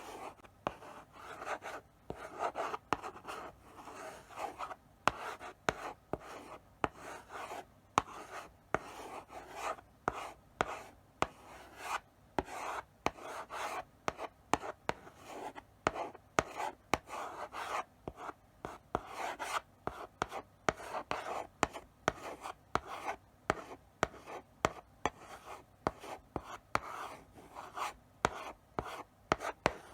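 Chalk writing slowly on a blackboard: short scraping strokes one after another, with sharp taps as the chalk meets the board at the start of strokes.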